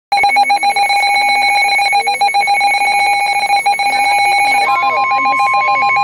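Midland NOAA weather alert radios sounding their alert with a rapid electronic trill. About three-quarters of the way in, a single steady tone near 1 kHz takes over: the weather radio attention tone that comes before a severe thunderstorm warning is read.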